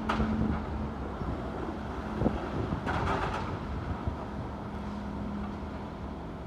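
Demolition machinery running steadily with a low hum, with a sharp knock or two and a brief rattle of debris about three seconds in. Wind is buffeting the microphone.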